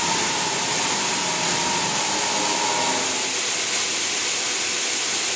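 3-axis CNC vertical machining center running with a steady hiss. A faint whine fades out about three seconds in.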